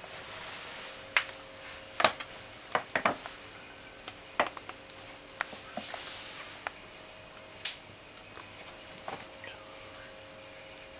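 Stiff paper shopping bag crackling and rustling as a cat shifts and paws about inside it: a run of sharp crackles, thickest about two to three seconds in, with softer rustling between, over a faint steady hum.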